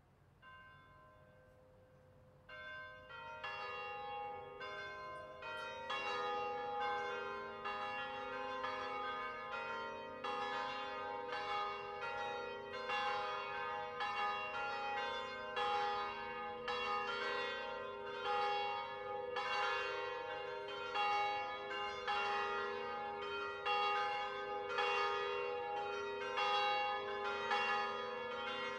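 Several De Poli bronze church bells, hung in the Veronese manner, swung in a distesa: faint strokes at first, then from a couple of seconds in a full, steady ringing of overlapping strokes, about two a second.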